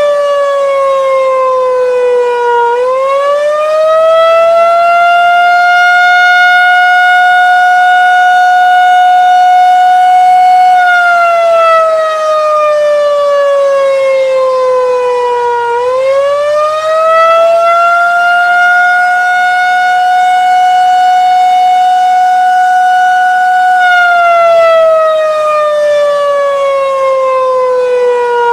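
Federal 2001-130 electromechanical tornado siren running on 48 V DC, sounding an attack wail: the pitch rises and holds high for about eight seconds, then falls for about five, twice over.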